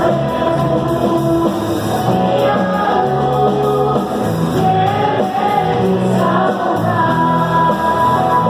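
Christian praise music: a singing voice over a band with guitar, playing steadily.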